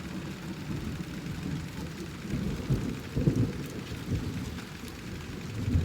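Thunder rumbling over steady rain, with the loudest rolls about three seconds in and again near the end.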